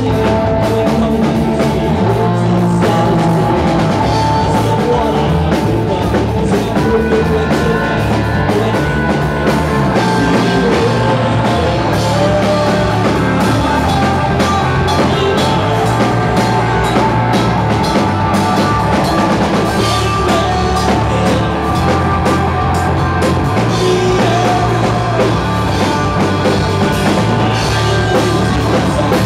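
Live rock band playing: electric guitars, bass guitar and a drum kit, loud and unbroken.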